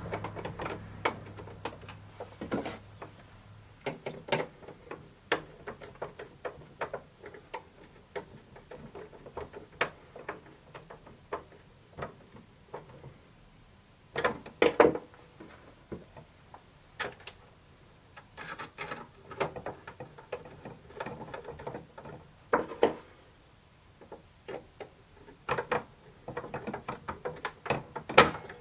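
Irregular small clicks and taps of machine screws, lock nuts and hand tools on 3D-printed plastic parts being fitted and tightened by hand, with a busier cluster about halfway through and more towards the end.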